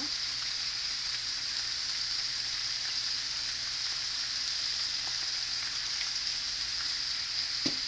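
Diced beef steak sizzling steadily in hot oil in a cast-iron skillet.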